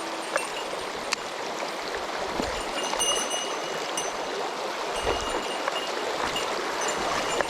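Small mountain stream running: a steady rush of flowing water, with a couple of faint low thumps.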